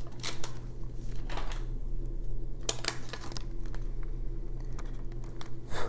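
Plastic cover film on a diamond-painting canvas being peeled back and handled, crinkling in about four short rustles.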